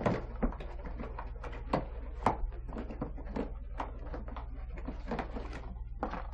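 Cardboard boxes being handled on a wooden tabletop: a dozen or so scattered light knocks, taps and rustles as a flat box is shifted and a parts box is rummaged, over a low steady hum.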